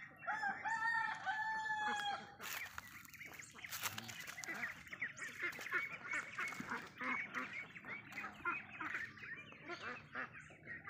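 Rooster crowing once in the first two seconds, a long call in three parts, followed by a flock of domestic ducks giving busy, rapid quacking and chattering calls.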